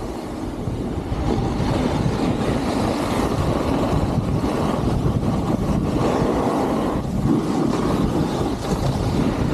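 Wind rushing over the camera microphone as a snowboard slides down the slope, a steady low rumble with the hiss and scrape of the board's edges on packed snow.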